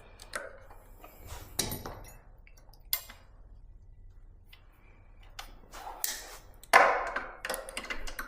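Small metallic clinks and taps of disc brake pads and their spring being worked out of an e-bike's brake caliper, with a louder clatter near the end.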